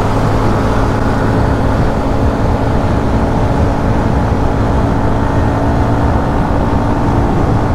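Hero Xtreme 125R's single-cylinder engine running at a steady cruising speed on the move, its pitch holding level, under a constant rush of wind and road noise.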